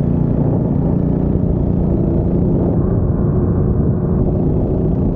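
The 196cc single-cylinder engine of a TrailMaster Hurricane 200 minibike running steadily as the bike rides off over gravel.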